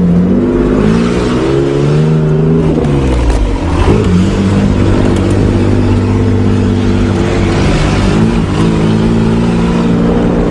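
1986 Nissan 4x4 pickup's 3-litre engine pulling under load, heard from inside the cab as the truck drives off-road. The engine pitch climbs for a couple of seconds, drops sharply about three seconds in, then holds fairly steady with small rises and falls.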